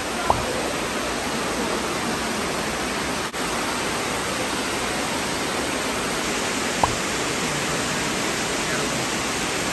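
Steady rush of water splashing down the rock cascades of an indoor replica Trevi Fountain. Two short sharp ticks stand out, one just after the start and one about seven seconds in.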